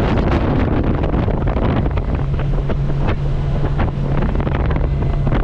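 A small fishing boat's motor running steadily under way, with strong wind buffeting the microphone and frequent sharp gusts or slaps over it.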